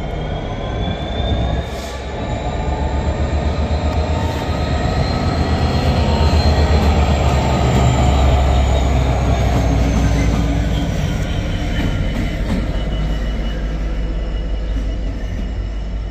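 GB Railfreight class 66 diesel locomotive with its two-stroke V12 engine, running alone as a light engine, passing close by at low speed and drawing away. The deep engine rumble builds to its loudest about halfway through, then slowly fades, with a thin high wheel squeal above it.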